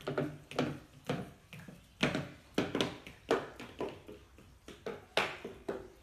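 Slippered footsteps on a hard tile floor: a steady walk of about two sharp steps a second.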